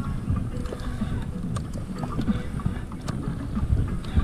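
Uneven low rumble of wind buffeting the microphone and water slapping against a small boat, with a few light clicks scattered through it.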